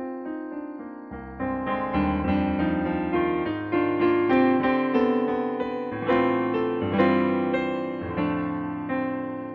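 Background piano music: a melody of struck notes that ring and fade over chords, with lower bass notes joining about a second in.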